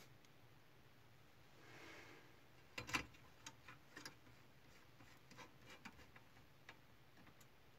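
Faint, irregular small clicks and taps of printer parts being handled during reassembly, with a brief soft rustle about two seconds in and a louder cluster of clicks about a second later.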